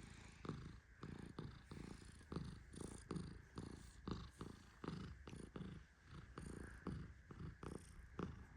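Persian cat purring, a soft low rumble that swells and fades in uneven pulses about once or twice a second.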